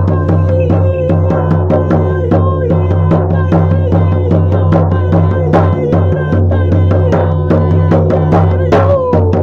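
Shamanic journey drumming: a steady, fast drumbeat over a continuous low drone, with a wavering higher tone above it.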